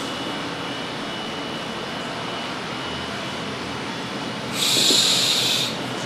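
Steady background noise, then about four and a half seconds in a forceful hissing breath out, lasting about a second: the client exhaling during a deep stretch after the cue to breathe in.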